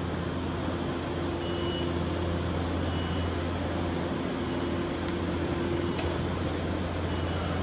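Steady low hum over a constant rumbling background, typical of city and station machinery ambience, with a few faint ticks.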